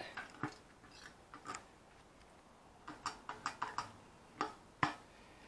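Small metal clicks and a jingle of keys as a motorcycle's locking fuel filler cap is turned shut with its key and the key is pulled out. A quick run of clicks comes about three seconds in, and the sharpest clack comes near the end.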